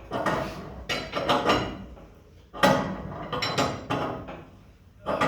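Metal clinks and knocks from a wrench turning the threaded rod of a homemade coil spring compressor as a compressed coil spring is slowly let out. The strikes come in uneven clusters, about a dozen in all.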